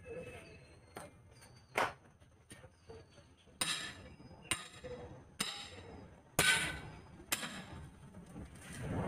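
A long steel pry bar jabbed down between a truck tire and its steel rim, about eight sharp metallic strikes roughly a second apart, working the bead loose for a manual tire change.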